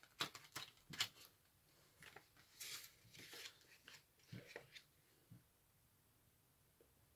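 Faint paper rustling and a few light clicks as a folded CD booklet is opened and its pages handled, dying away to near silence about five seconds in.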